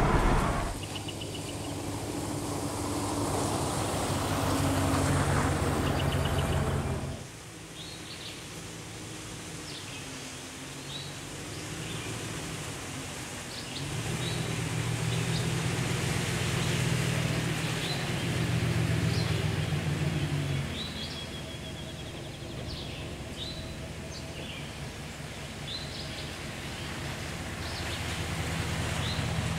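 Steady road and engine noise inside a moving pickup truck, cut off about seven seconds in. Then birds chirping in short repeated calls over a low engine hum that comes and goes, from a pickup truck idling nearby.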